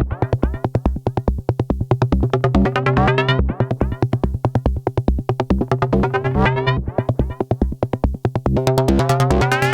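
Arturia MiniFreak Vocoder Edition synthesizer playing its "Vervdisco" preset, a fast repeating electronic bass sequence of short notes. The tone brightens in upward sweeps every few seconds.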